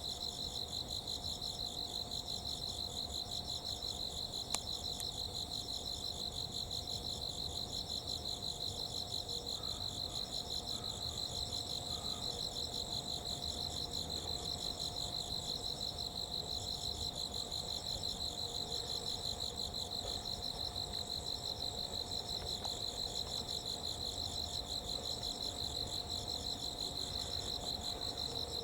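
Insects chirping in a steady, rapidly pulsing chorus, with a faint steady hum underneath and a single sharp click about four and a half seconds in.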